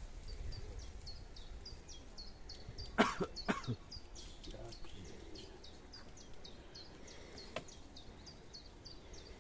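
A small bird repeats a short high chirp about three times a second. About three seconds in come two short harsh noises half a second apart, and a faint click follows near the end.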